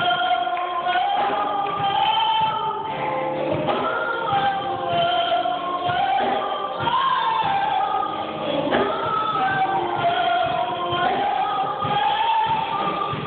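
A woman singing a slow gospel song into a microphone, holding long notes with vibrato in a church's reverberant room.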